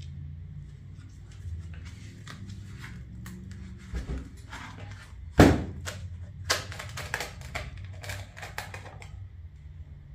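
A plastic mold being worked off a freshly cast cement planter: a run of clicks, knocks and scrapes. A sharp thump comes about five seconds in, followed by a quick cluster of knocks.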